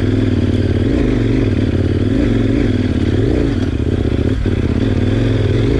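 KTM 1090 Adventure's V-twin engine running steadily under load as the bike climbs a dirt hill track.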